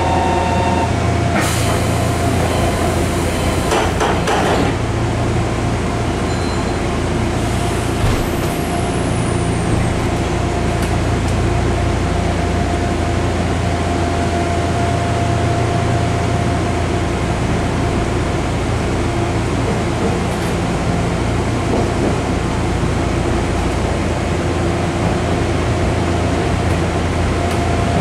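Nankai 6200 series commuter train's doors sliding shut with a couple of knocks in the first few seconds. Then the car's steady running noise with a low hum and a held tone as the train stands and pulls away.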